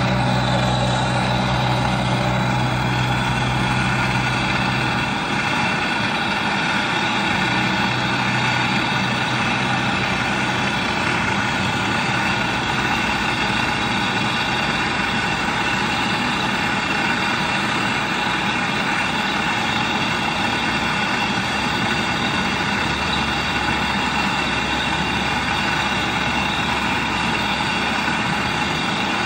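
A motor-driven machine running steadily with an engine-like hum. A deeper part of the hum drops away about five seconds in.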